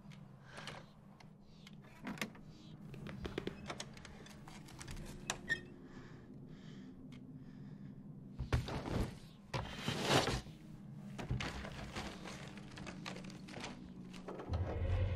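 Wooden treehouse trapdoor being unbolted and pushed open, with scattered knocks, clicks and thunks of wood, the loudest and longest of them about halfway through. A low drone comes in near the end.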